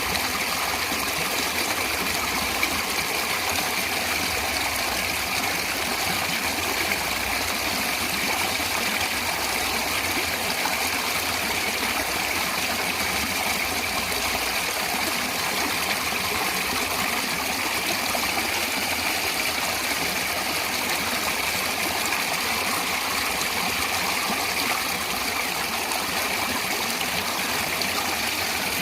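Natural running water flowing steadily, an even, unbroken rush.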